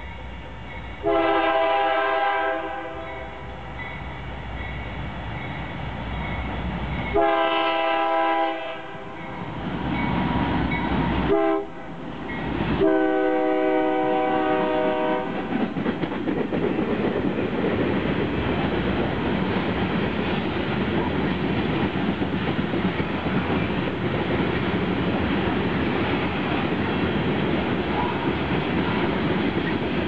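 Air horn of a CN GE diesel-electric freight locomotive sounding the grade-crossing signal: two long blasts, a short one and a long one, ending about halfway through. The locomotive then passes and the freight cars roll by with a steady rumble and clickety-clack of wheels on the rail joints.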